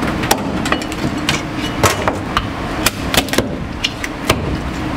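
Chinese cleaver chopping lobster on a thick plastic chopping block: about a dozen sharp, irregularly spaced chops over a steady background hum.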